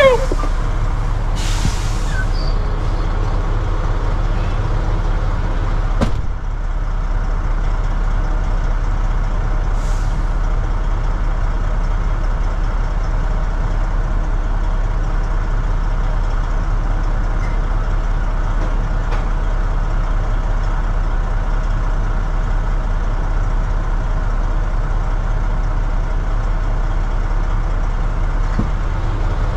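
Semi truck's diesel engine running steadily, with a short hiss of air about two seconds in and a single sharp click about six seconds in.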